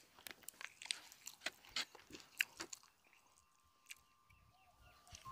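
Faint, close-miked chewing with short wet mouth clicks and smacks, from eating pork shoulder and rice by hand. The clicks thin out after about three seconds, and a faint steady tone comes in.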